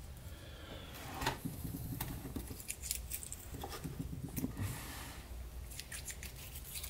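Light metallic clicks and scrapes as a set of steel feeler gauge blades is fanned and slipped into the gap of a differential carrier to check its clearance.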